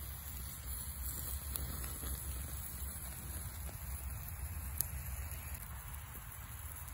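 Wood fire crackling and a whole stone bass sizzling on the grill above it: a steady hiss with scattered small pops, one sharper pop about five seconds in, over a low rumble.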